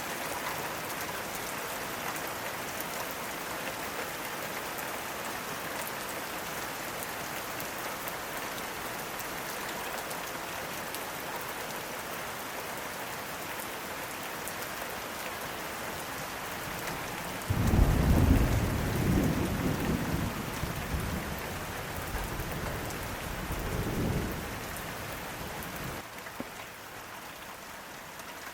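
Steady rain falling, and about two-thirds of the way through a sudden clap of thunder that rumbles low for several seconds, swelling once more before it fades.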